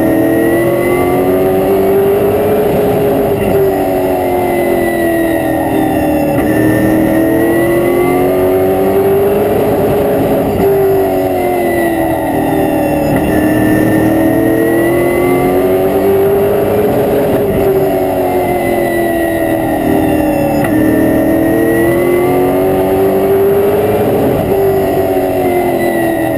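A race car's V8 engine at racing speed, heard from inside the cockpit. It is loud, and its pitch rises and falls in a steady repeating cycle every few seconds as the driver accelerates down each straight and lifts for each turn, lap after lap.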